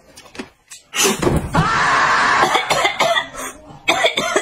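A person coughing hard and sputtering: a sudden loud cough about a second in, then a strained, rasping cough-out held for about a second and a half, and shorter coughs and gasps near the end.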